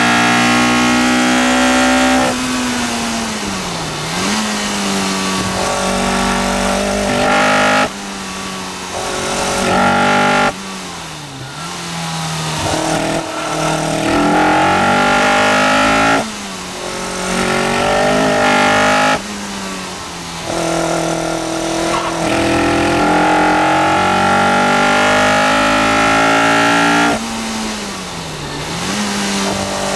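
Caterham R400's four-cylinder Ford Duratec engine lapping a circuit, heard from the open cockpit: running hard under full throttle, with the engine note dropping suddenly several times as the driver lifts off, brakes and changes gear for corners, then pulling hard again.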